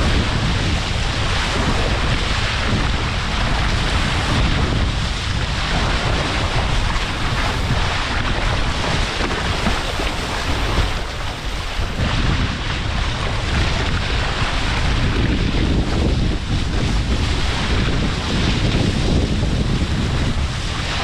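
Strong wind buffeting the microphone over the steady rush of water along the hulls of a Hobie 16 catamaran under sail.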